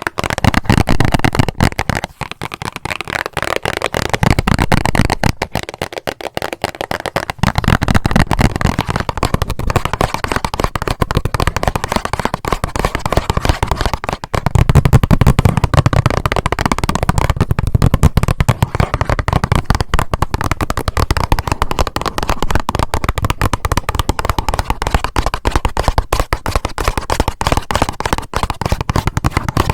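Rapid, continuous fingernail tapping on a band-aid box, a dense stream of close-miked clicks and light knocks.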